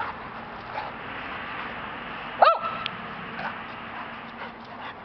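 A dog at play gives one short, high bark about two and a half seconds in.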